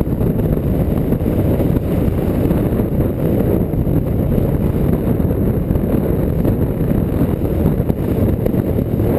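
Steady low rumbling noise of wind buffeting the microphone on a running boat.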